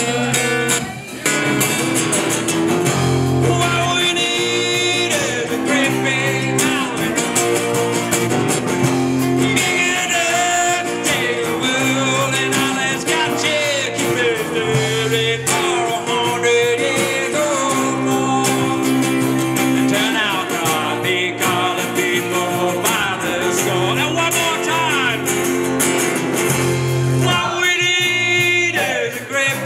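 A song played on acoustic guitars with a singing voice, over a steady repeating bass line.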